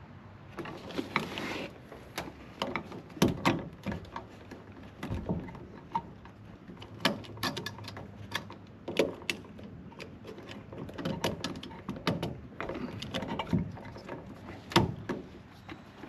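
Irregular clicks, taps and scrapes of hand work on electrical wiring: stiff ground wires being worked into the terminal lugs, with small knocks of tools and metal parts.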